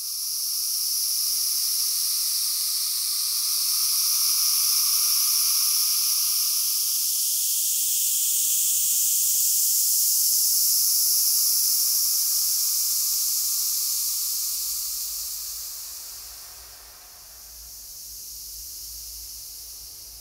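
A steady high-pitched hiss that swells in at the start and holds, then fades about three-quarters of the way through and returns more softly.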